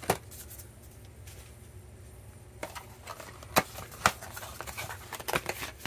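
Cardboard box and plastic accessory tray being handled: scattered light clicks and taps, about half a dozen, a few at a time over a quiet background.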